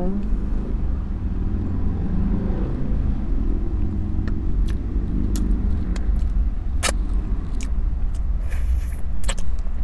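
Steady low rumble of an idling car heard from inside the cabin, with a few sharp clicks and smacks from eating, the loudest about seven seconds in.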